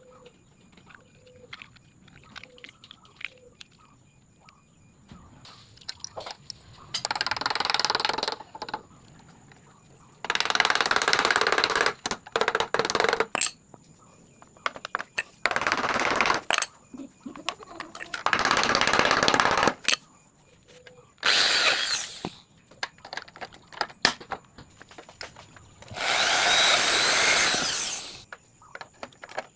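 Power drill running in about six short bursts, each one to three seconds long, with small clicks and knocks of handling between them. This is typical of drilling or screwing into aluminium profile while the connector brackets are fitted.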